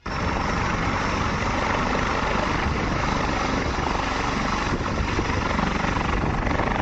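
Helicopter running close by: loud, steady rotor and engine noise that starts abruptly.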